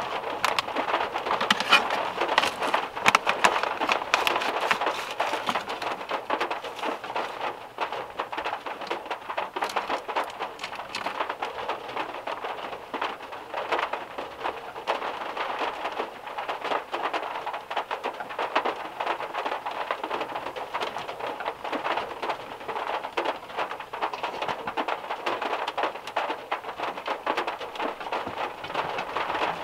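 Heavy rain pattering on a VW Beetle's metal roof, heard from inside the car: a dense, even spatter of drops, heavier in the first few seconds.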